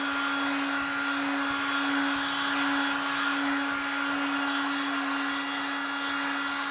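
Electric heat gun running steadily, a motor hum over a rush of blown air. It is blowing hot air across a freshly poured resin coat to draw out trapped air bubbles.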